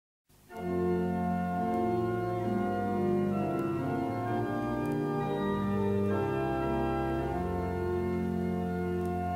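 Background music of slow, sustained keyboard chords with no percussion. It starts just after a brief silence at the opening.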